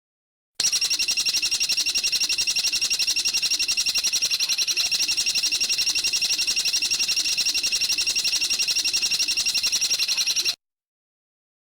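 A small songbird's long, rapid trill of high notes repeated evenly at about ten a second. It comes from a clean edited recording that starts about half a second in and cuts off sharply near the end.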